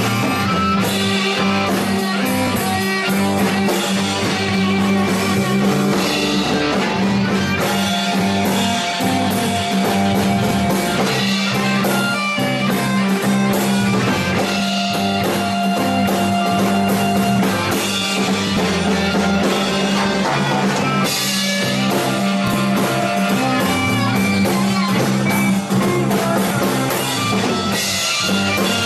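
Live electric blues band playing a steady groove, with slide guitar, bass and drums.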